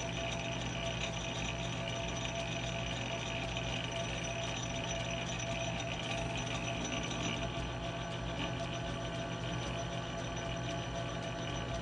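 Metal lathe running slowly in back gear, a steady even running sound with constant tones, as a 5/16-18 tap held in the tailstock chuck cuts threads into the bore of the turning bar stock.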